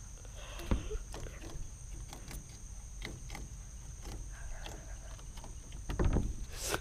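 Steady high-pitched chirring of an outdoor insect chorus, with scattered soft clicks and a louder rustling thump from the camera being handled near the end.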